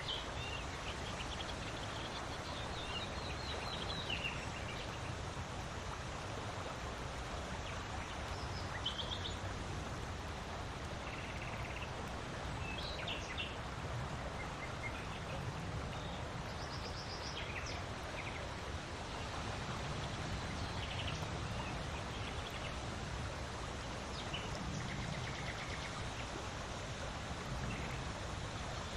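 Steady wind noise, with short bird chirps and calls every few seconds.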